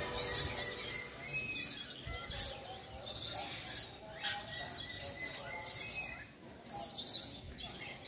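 Birds chirping and calling: short, high calls recurring every second or so.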